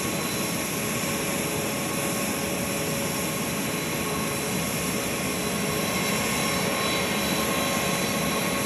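Jet aircraft engines running steadily: an even rush of noise with a few fixed high whining tones over it.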